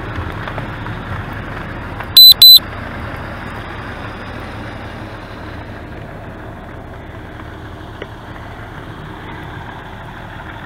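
Two short, very loud high-pitched electronic beeps in quick succession about two seconds in, over a steady low rumble and hiss.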